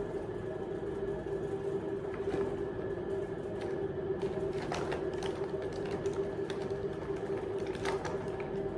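A steady, even motor hum, with a few light clicks and taps as make-up cases and tools are handled.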